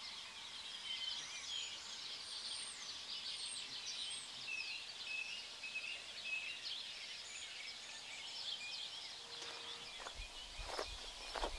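Rural outdoor ambience: many small birds chirping and twittering over a steady background hiss. Near the end, a few footsteps on a road come in.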